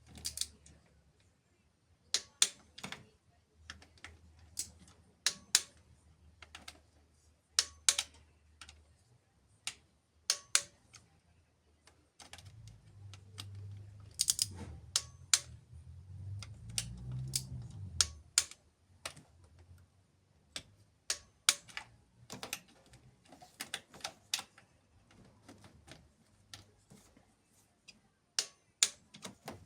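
Hand tools and engine parts being handled during repair work: scattered sharp clicks and taps, singly and in quick pairs, over a faint low hum that swells for a few seconds midway.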